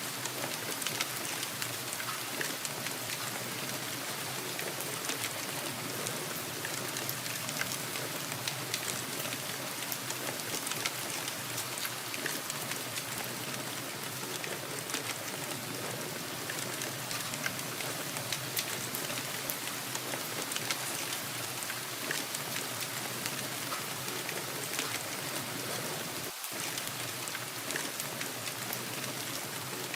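Steady rainfall: an even, unbroken hiss dotted with many small, sharp ticks of individual drops landing.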